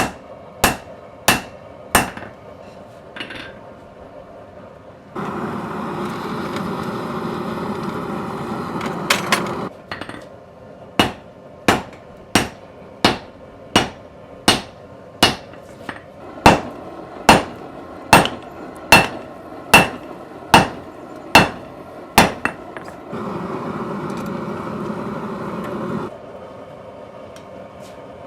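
A hand hammer striking hot metal on an anvil in runs of sharp, ringing blows, about one and a half a second. Twice the hammering stops for a few seconds of steady rushing noise.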